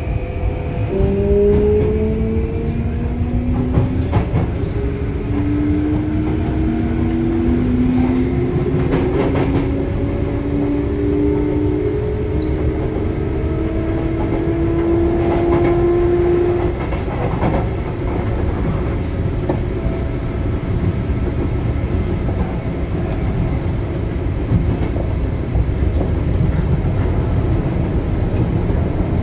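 Sotetsu 9000 series electric train under way: the whine of its traction motors and inverter climbs in pitch for about fifteen seconds as the train accelerates. After that it runs steadily with a low rumble and occasional wheel-over-rail-joint clicks.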